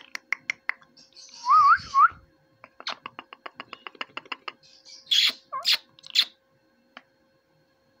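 Ringneck parakeets (rose-ringed parakeets) calling in their cage: quick runs of sharp clicks, a short rising whistle about one and a half seconds in, then three harsh screeches about five seconds in.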